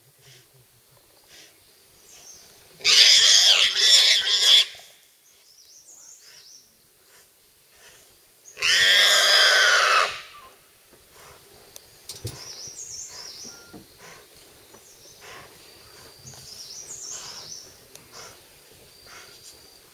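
Wild boar squealing twice, each loud cry about a second and a half long, while caught in a tiger's jaws: the distress cries of live prey being killed. Faint bird chirps and rustling in the grass follow.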